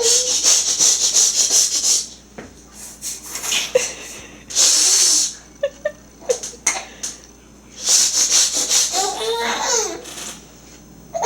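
A baby blowing raspberries: three long sputtering bursts of lip-buzzing and spitting, with brief baby laughter and babbling between them.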